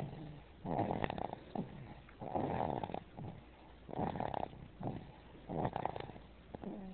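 Baby snoring in its sleep, one snore on each breath, about four in a row, roughly every second and a half.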